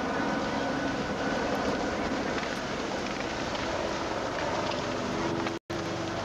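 Outdoor roller-hockey play: a steady rolling and rushing noise of inline skates on asphalt, with a few faint clicks of sticks on the ball. The sound cuts out for an instant near the end.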